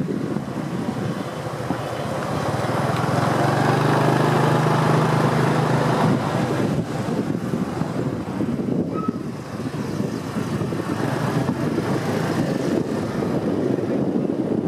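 Wind buffeting the microphone on a moving motorbike, with engine and traffic noise. An engine hum builds from about two seconds in and breaks off suddenly about six seconds in.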